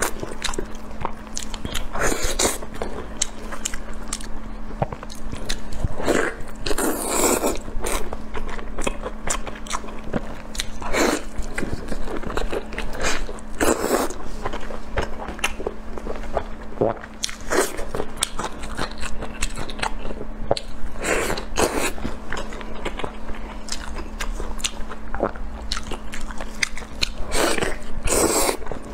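Close-miked eating: irregular bites and chewing as a person tears into and eats a piece of sauce-glazed braised meat, with a few louder bites. A steady low hum runs underneath.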